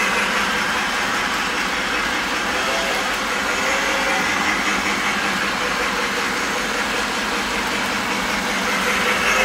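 Lionel Union Pacific Flyer O-gauge model steam train running laps of its oval track: a steady rolling rumble of wheels on the rails mixed with the locomotive's built-in steam sound effects from the tender's speaker. It gets louder as the locomotive passes close, near the start and again near the end.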